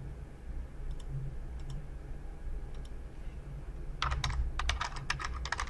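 Typing on a computer keyboard: a quick run of keystrokes starting about four seconds in, entering a file name. Before it come a few faint single clicks.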